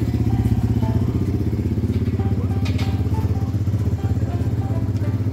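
Engine idling steadily, with a fast, even low pulse.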